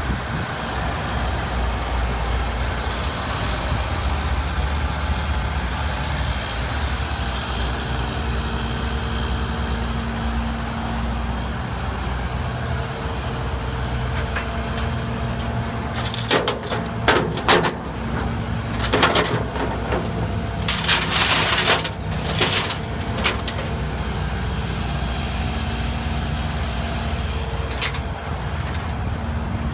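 Ford F550's 6.7-litre Powerstroke V8 diesel running steadily with a low rumble and a steady hum. In the middle come several short, loud bursts of hissing, rushing noise.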